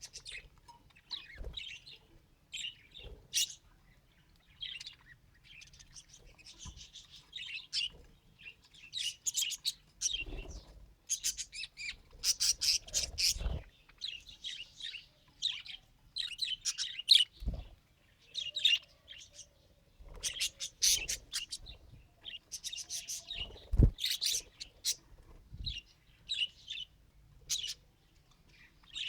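Pet budgerigar chattering: a continuous run of short, irregular chirps and warbling notes, with a few dull knocks mixed in.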